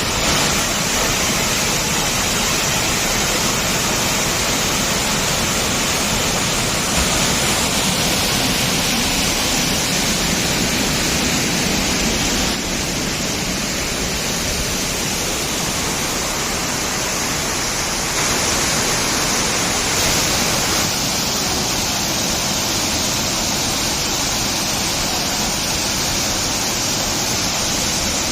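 Rushing water: a loud, steady roar that changes slightly in level and tone about 12 and 20 seconds in.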